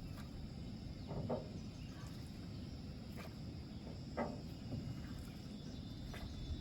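Quiet lakeside outdoor ambience: a low steady rumble with faint insects, broken twice by a short soft knock about three seconds apart.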